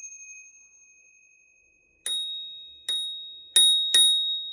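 A bicycle bell's ring fading away over the first second and a half. Then, about two seconds in, a higher-pitched cheap bicycle bell is dinged four times, the last two close together, each ding ringing on.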